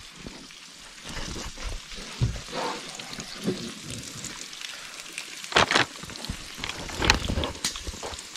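Bacon and steak sizzling in a pan, a steady crackling hiss, with a few short clinks or knocks of utensils, most noticeably about five and a half and seven seconds in.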